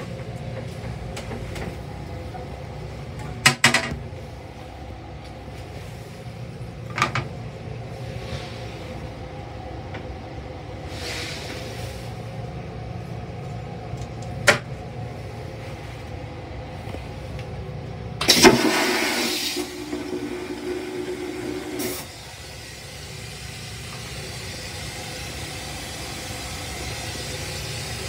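Toilet in a Long Island Rail Road M3 railcar restroom: the plastic seat and lid clack sharply a few times, then the toilet flushes, a loud rush lasting about three and a half seconds that cuts off suddenly. Under it all runs the railcar's steady low rumble.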